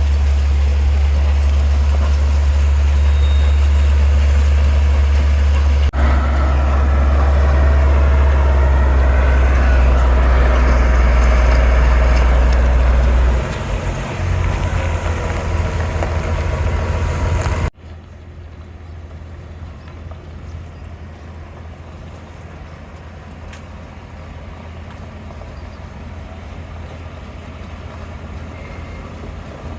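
Heavy construction machinery engines running, a loud low rumble that changes about halfway through. It then cuts off abruptly to quieter, steady machine noise.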